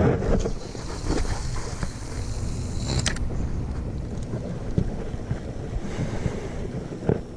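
Wind on the microphone and water around a small fishing boat, with a sharp click about three seconds in and another near the end.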